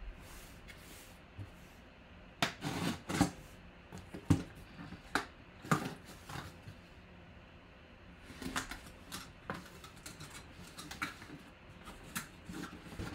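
Folding pocket knife slitting the tape on a cardboard box, then the box flaps being pulled open: scattered sharp scrapes, taps and cardboard rustles.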